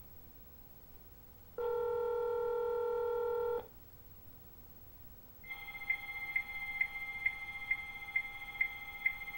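A phone call being answered by a modem, heard over a cordless phone's speaker. First comes one ring of the ringback tone, a steady tone about two seconds long. Then, from about halfway in, the BBS's dial-up modem answers with a high steady answer tone that clicks faintly about twice a second.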